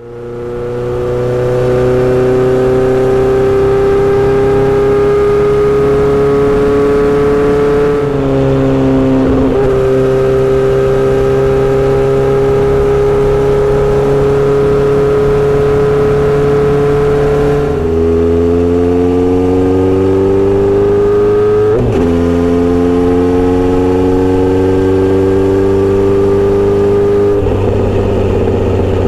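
Kawasaki Z900RS inline-four with a Misty Kintaro short-pipe steel exhaust and L silencer, riding under power. The engine note climbs slowly in pitch and drops back at several upshifts.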